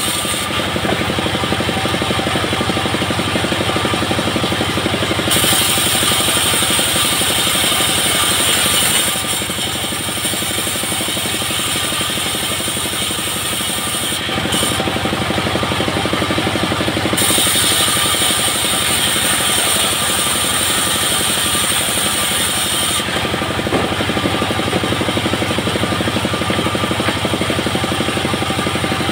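Engine-driven homemade bandsaw mill running steadily, its blade cutting coconut wood twice, adding a bright high-pitched hiss from about five to nine seconds in and again from about fifteen to twenty-three seconds in.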